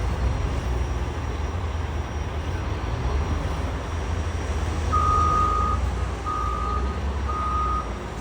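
A heavy vehicle's engine rumbling steadily. About five seconds in, its reversing alarm starts beeping at one pitch, about once a second.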